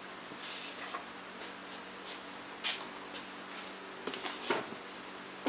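A few brief rustles and knocks of someone moving about and handling things, over a faint steady hum.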